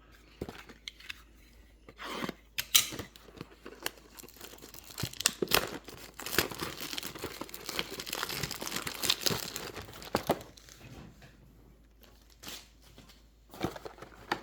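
Packaging of a hockey-card blaster box being torn open: irregular tearing and crinkling with sharp crackles, busiest in the middle and easing off near the end.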